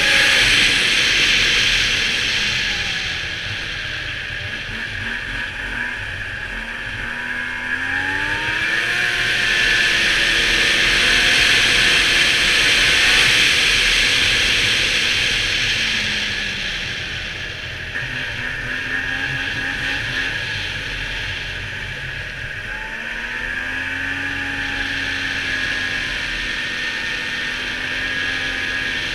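Snowmobile engine running at trail speed, its pitch rising and falling as the throttle is opened and eased, over a steady hiss.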